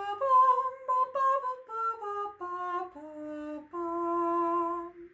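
A woman sings a short tune without words, unaccompanied, moving through a series of held notes and ending on a long, low held note.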